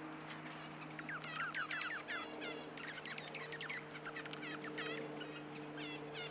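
Small birds chirping in quick runs of short, falling notes, several overlapping, busiest in the first half and again near the end, over a steady low hum.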